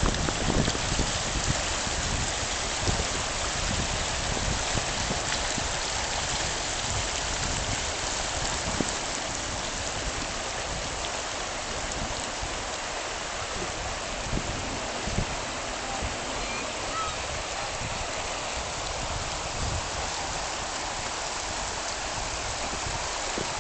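River water rushing steadily, an even hiss of flowing water, with a few brief low bumps.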